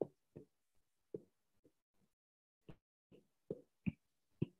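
Faint, irregular taps and clicks of a stylus striking a writing tablet as words are handwritten, about nine short strokes with a pause in the middle.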